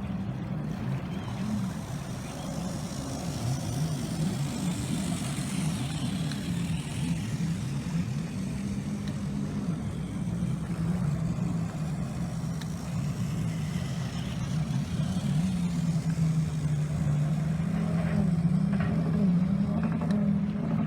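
Small electric motor and gearbox of a 1:18 RC rock crawler running as it drives and crawls, a steady low whine that wavers in pitch with the throttle.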